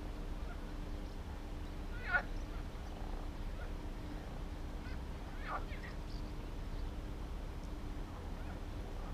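Two short, harsh bird calls, about three and a half seconds apart, over a faint steady hum.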